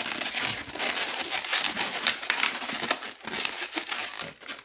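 Latex modelling balloons rubbing against each other and against the hands as they are twisted and turned: a dense, continuous rubbing rustle with many small sharp clicks.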